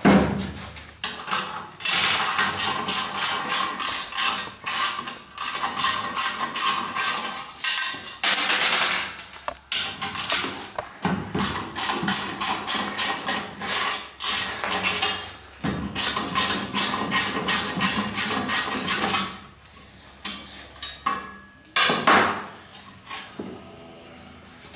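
Rapid metallic clicking and clanking of hand-tool work on an ATV's exhaust and heat shield, dying down about three-quarters of the way through.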